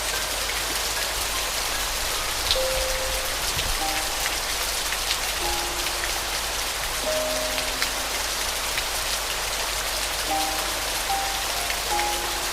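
Steady rain falling, a continuous even hiss with scattered drop taps, under a slow, sparse melody of soft single piano notes a second or more apart.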